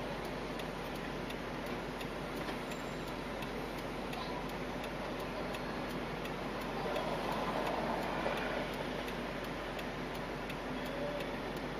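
Inside a car waiting at a light: steady idling and cabin hum with a light, regular ticking of about two to three ticks a second.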